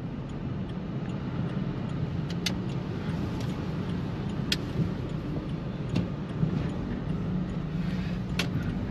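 Cabin sound of a Volkswagen Polo TSI GT's turbo petrol engine running on CNG while driving in traffic: a steady low engine and road rumble. A few sharp clicks are spread through it.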